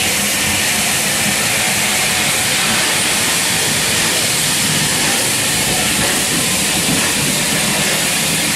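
Steady hiss of steam escaping at the cylinders of Southern Railway Battle of Britain class steam locomotive 34081 '92 Squadron' as it moves slowly past with its coaches.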